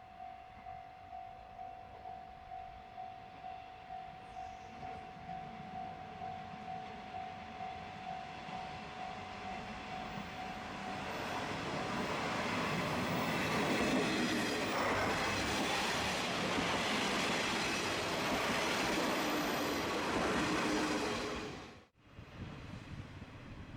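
Level-crossing alarm ringing a steady, rapidly repeated electronic ding. It is then covered by a diesel train on the Dosan Line running past over the crossing, growing loud for about ten seconds before the sound cuts off abruptly near the end.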